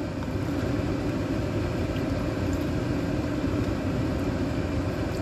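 Steady rushing roar from the gas stovetop, where a burner heats a steamer pot of boiling water.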